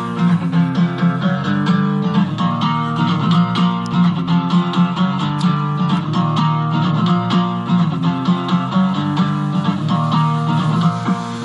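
Guitar music played at full volume through two waterproof Bluetooth ATV soundbars at once, a Live Round Sound 18-inch Gator bar and a Wetsounds Stealth 6 UltraHD, with a strong steady bass line.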